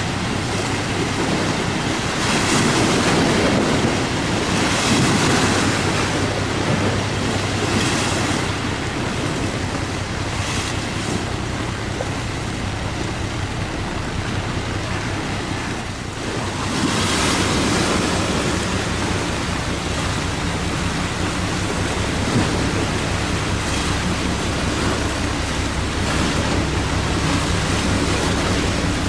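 A 499-ton coastal container ship passing close: the rushing wash of its bow wave over a steady low diesel drone, with wind buffeting the microphone. The wash swells twice, once early and again from about halfway.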